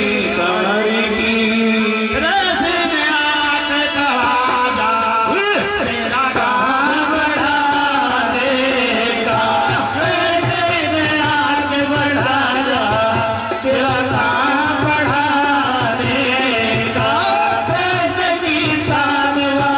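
Hindi devotional bhajan: a man's voice singing a melodic line over a sustained drone, with a steady low drum beat joining about eight seconds in.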